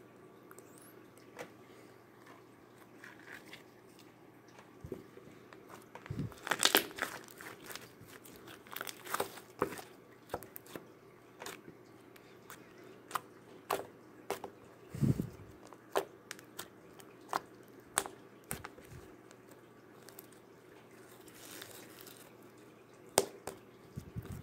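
Glossy homemade slime being squeezed, stretched and poked by hand, giving irregular sticky clicks and crackling pops, loudest about six to seven seconds in.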